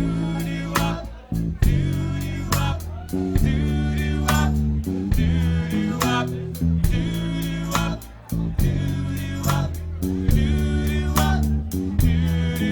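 Live band playing an instrumental break, guitar and bass over a steady beat.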